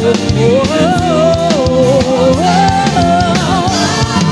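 Live gospel praise-and-worship music: a band with drum kit playing under one voice singing a long gliding melodic line.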